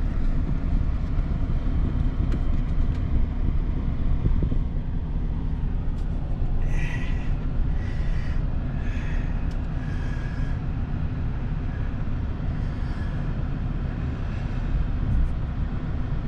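Steady low rumble of a running vehicle, with four brief higher-pitched sounds about halfway through.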